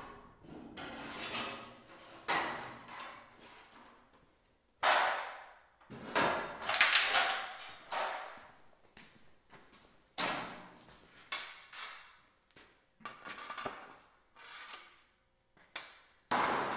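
A long strip of aluminum trim being pulled off a trailer's nose and handled, clanking and rattling in a series of sharp metallic knocks with short ringing tails.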